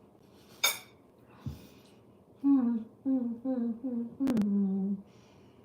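A woman humming a tune in six short notes, the last one held longer, with a sharp click before the humming starts and another near the last note.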